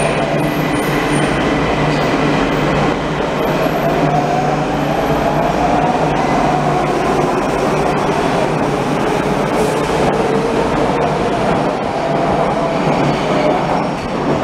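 Nagoya subway Meijo Line trains at an underground station platform: a train running past with a steady rumble of wheels on rail and an electric motor whine that glides up and down in pitch.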